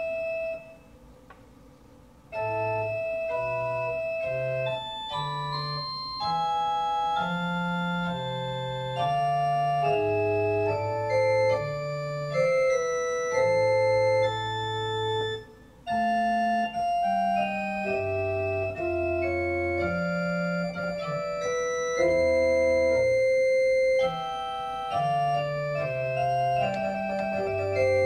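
Organ playing a slow practice piece, held notes over a low bass line. A single short note, a pause of about a second, then steady playing with a brief break about halfway through.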